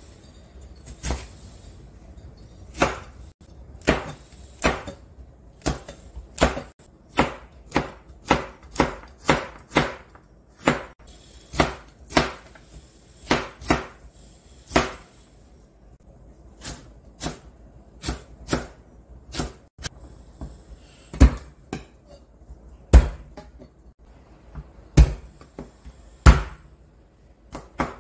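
Chef's knife chopping vegetables on a plastic cutting board: separate knife strokes hitting the board about one to three times a second, with short pauses, and a few heavier thuds in the last several seconds.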